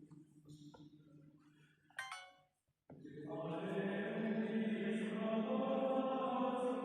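Choral chant with long held notes. About two seconds in there is a short bright chime, then the sound cuts out briefly and the chant comes back louder.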